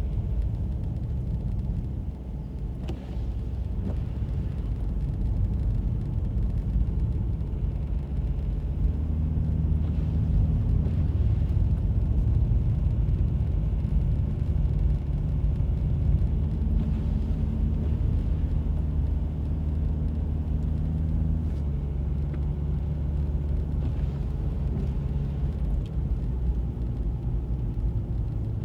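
A car's engine and road rumble from inside the moving vehicle, a low steady drone whose engine note shifts in pitch and grows somewhat louder a few seconds in as it drives up a snow-covered road.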